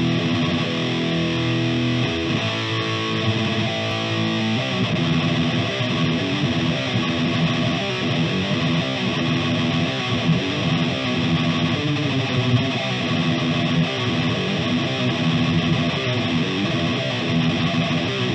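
Distorted electric guitar through an Ampeg VH140C solid-state combo amp, pushed by a Boss SD-1 overdrive set as a clean boost (gain at zero, level at max), playing thrash metal riffs. Held chords for the first few seconds, then fast repeated-note riffing from about four seconds in.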